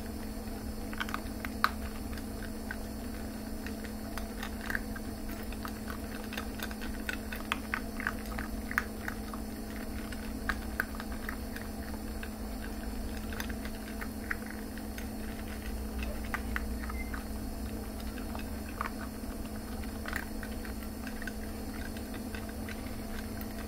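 Two dachshund puppies eating dry kibble from a bowl: irregular small crunches and clicks of chewing and kibble shifting, busiest in the first half, over a steady low hum.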